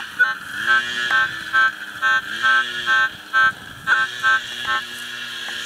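Minelab CTX 3030 metal detector beeping: short, repeated target tones, about two to three a second, as the coil sweeps back and forth over a buried target that covers a fairly wide spot.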